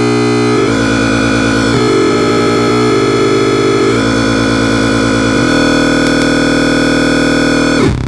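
Homemade tone generator built from two 555 timer chips and a 4093 chip, giving a loud electronic drone of several stacked pitches at once. The pattern shifts every second or so, and it changes to a steadier, deeper tone about five and a half seconds in.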